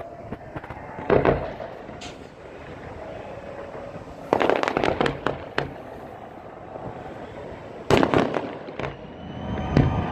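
Fireworks display: aerial shells bursting, with a bang about a second in, a quick run of crackling bursts around the middle, and two more bangs near the end.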